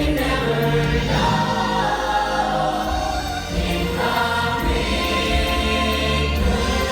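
Show music with a choir singing over a full instrumental backing.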